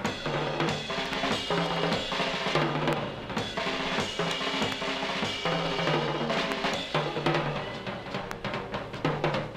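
Live Hammond organ and drum kit instrumental, the drums busy and prominent with snare and bass drum hits, over a repeating low bass figure.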